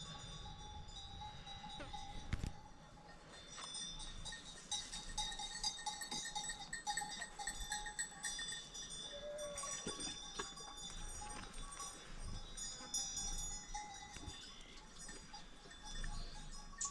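Many sheep bells tinkling and clanking irregularly as a flock of sheep moves along.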